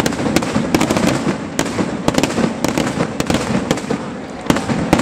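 Fireworks going off in quick, irregular succession: a dense run of sharp bangs and crackles, several a second, with one louder bang near the end.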